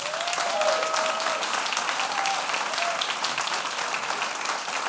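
Audience applauding, dense and steady, with a few short cheers in the first three seconds.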